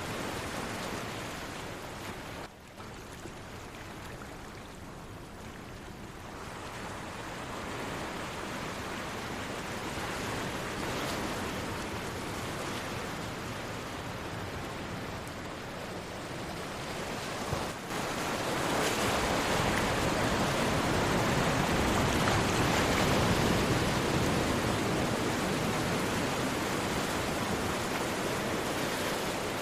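Sea waves surging and washing ashore in a continuous rush, building louder in the last third as a bigger swell comes in.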